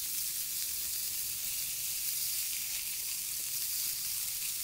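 Hamburger patties sizzling steadily on a griddle over a wood fire.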